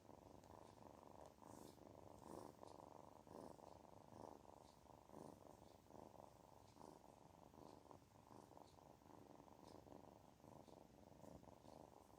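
Kitten purring continuously in a faint, fast, even pulse, the sound of a contented kitten that feels good.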